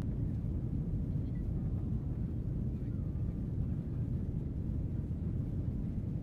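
Airliner cabin noise: a steady, low rumble of the engines and airflow heard from inside the passenger cabin.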